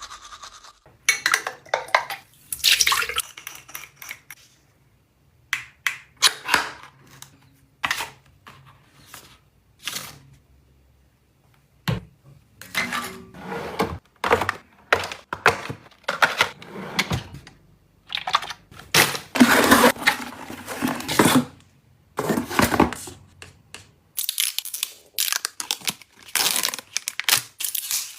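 Household items being handled and set down: a long irregular run of clicks, taps and knocks with rustling between, pausing briefly now and then.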